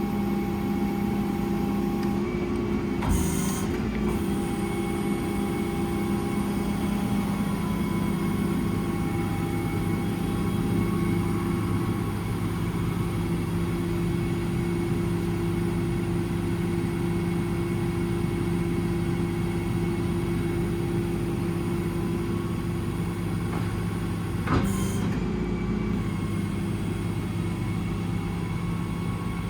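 Service truck's 6.7 Cummins ISB diesel and its hydraulics running steadily while the crane is worked, the hum shifting slightly in pitch as the load changes. Two short sharp sounds come about three seconds in and near the end.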